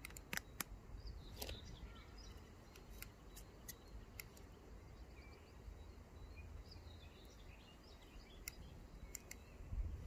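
Quiet scattered clicks and scrapes of hands and a small trowel working loose soil and handling a plastic seedling pot while transplanting seedlings, with faint bird chirps in the background.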